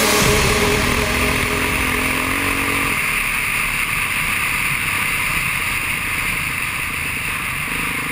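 Off-road motorbike engine running steadily at speed on a gravel track, with loud wind rush over the microphone.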